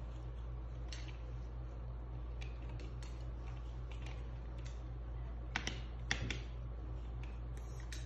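Hair-cutting scissors snipping hair in scattered sharp clicks, with a cluster of louder snips about five and a half to six and a half seconds in, over a steady low hum.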